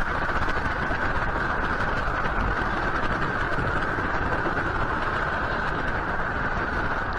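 Steady city background noise, an even hiss with a low rumble, picked up by a fixed rooftop camera's microphone over the night-time city.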